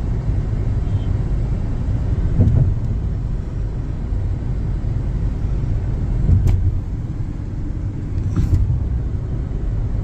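Steady low road and engine rumble inside a moving car's cabin on an open highway, with a few faint brief clicks.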